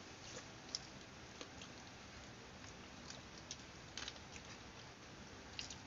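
Faint eating sounds from people eating chicken and rice by hand: soft chewing with a few small, scattered clicks of fingers and food against plates.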